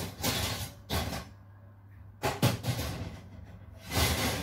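Metal oven rack being slid and set lower in an oven: a handful of separate scrapes and clanks, the sharpest knock about two and a half seconds in.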